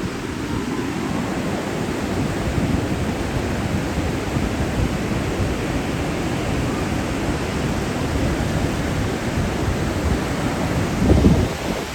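Ocean surf washing on a beach as a steady roar of noise, with a louder low rumble of wind on the microphone about a second before the end.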